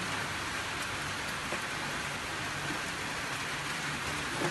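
Heavy rain pouring down steadily, an even hiss.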